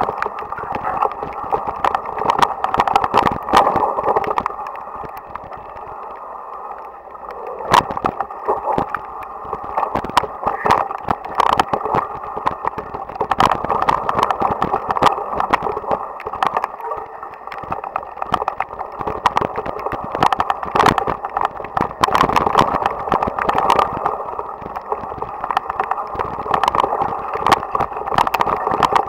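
Mountain bike descending a rough, wet dirt trail, heard through an onboard action camera's muffled microphone: a steady rushing of wind and tyres with frequent sharp knocks and rattles as the bike hits bumps. The rushing eases briefly about six seconds in.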